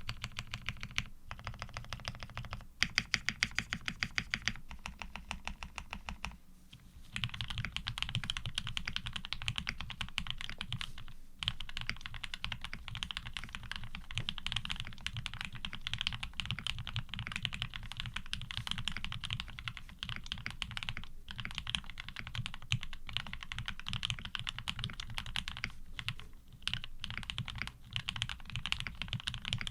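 Custom 7V mechanical keyboard being typed on fast: lubed Gateron Ink Black linear switches under GMK Oblivion keycaps, a dense run of keystrokes. A few louder strokes come about three to four seconds in, then a brief lull before steady fast typing resumes.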